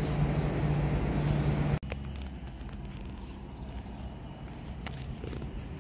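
A steady low hum with faint short high chirps, cut off suddenly about two seconds in. It gives way to a quieter outdoor scene with a steady high-pitched insect drone and a few light clicks.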